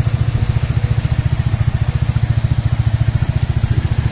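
Bajaj Dominar's single-cylinder engine idling steadily, with a fast, even exhaust beat.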